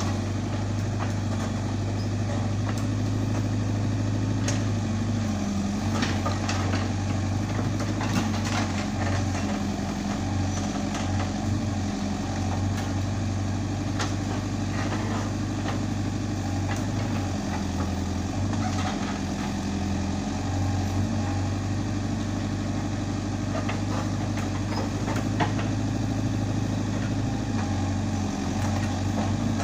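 Caterpillar 422F backhoe loader's diesel engine running steadily while the backhoe digs, its pitch dipping briefly now and then as the arm works. Occasional short knocks from the bucket and linkage.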